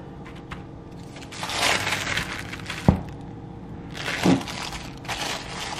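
Plastic bag crinkling and rustling in several short bursts as it is handled and held open, with a sharp click about three seconds in.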